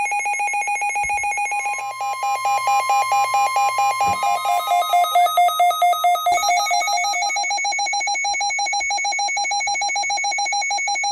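Electronic alert tone pulsing rapidly, its pitch shifting a few times: a radio station's severe weather alert sounder, announcing the interruption of regular programming.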